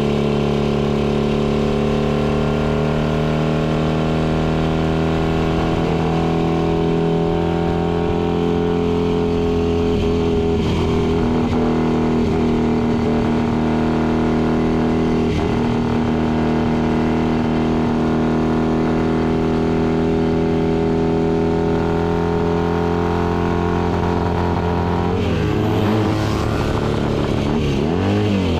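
Racing motorcycle's engine heard from onboard while ridden hard around a track, its note held at a nearly steady pitch. Near the end the engine note dips and climbs again twice.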